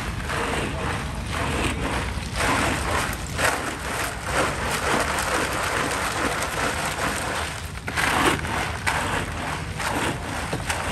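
Ice cubes churning and clattering in a large drum of iced watermelon drink as it is stirred with a long plastic ladle, over a steady low rumble of traffic.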